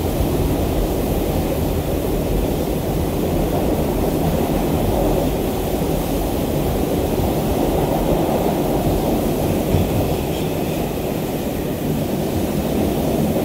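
Steady rumble of an R142 subway car running between stations, heard from inside the car.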